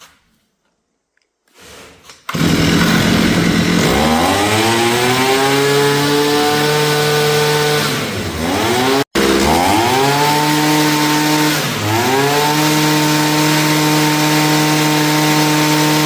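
Two-stroke brush cutter engine starting about two seconds in and revving up to a high, steady whine. The revs fall and climb back twice. It keeps running without stalling, its carbon-clogged exhaust freshly cleaned.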